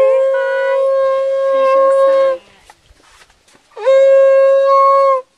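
Loud horn-like blown note, one steady pitch with a bright, rich tone. It holds until about two seconds in. After a short gap, a second blast slides up into the same note and holds for over a second.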